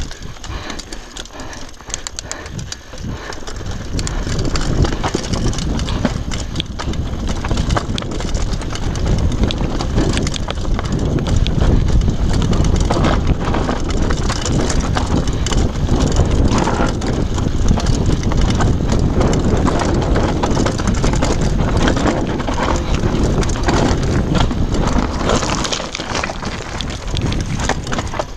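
Downhill mountain bike clattering and rattling over a loose, rocky trail, tyres crunching on stones with a constant run of small knocks, under wind rushing on the microphone. It grows louder about four seconds in.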